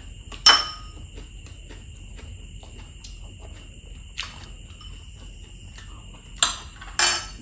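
Eating at a table: a few short, sharp clinks and crunches from a fork on a plate and bites of crispy fried lumpia, the loudest about half a second in and two more near the end. A steady high-pitched whine runs underneath.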